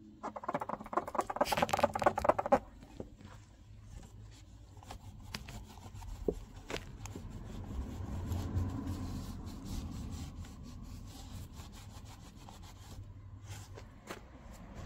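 A cloth rag rubbing and wiping over a Citroën 2CV's painted bodywork and chrome bumper, loudest and fastest in the first two and a half seconds, then softer rubbing with scattered small clicks and scrapes.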